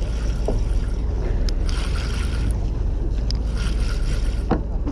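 Wind buffeting the microphone over a steady low rumble aboard a fishing boat, with a couple of faint clicks.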